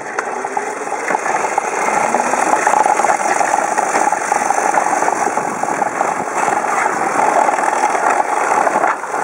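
Radio-controlled pulling tractor's motor running hard under load during a pull, a dense, steady mechanical buzz with rattling that builds over the first couple of seconds and then holds.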